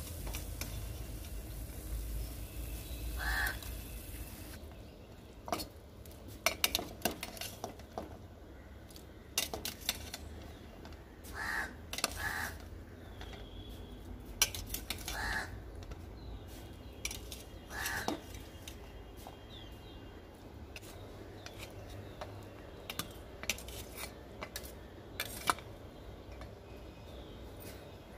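A steel spoon clinking and knocking against stainless-steel pots and a bowl as the cubes are scooped and tipped in. Crows caw several times in the background.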